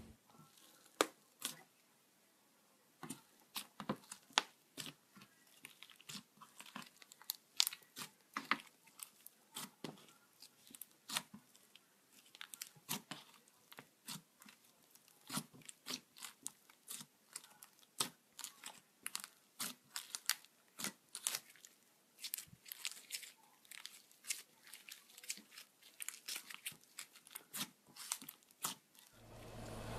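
Soft purple-and-white slime being pressed and poked by fingers, giving irregular sticky crackles and small pops, several a second.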